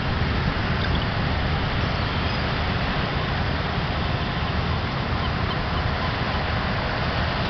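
Steady low rumble and hiss of ship engines working as a tug pulls a fully loaded small tanker off the quay.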